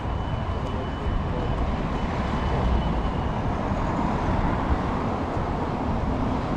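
Street traffic: a bus and cars going by on a city road, a steady noise heaviest at the bottom. A faint thin high whine runs through the first few seconds, then fades.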